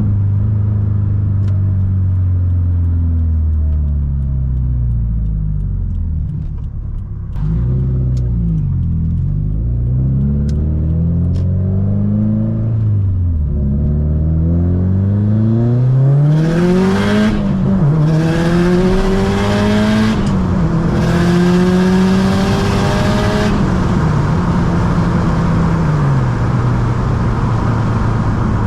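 Subaru STI's turbocharged flat-four engine, its pitch rising and falling with throttle and gear changes at low speed. Then, about halfway through, it makes a hard pull through the gears: the revs climb steeply, drops at the shifts break the climb, and a loud rushing hiss lies over it. Near the end it settles to a steady low drone.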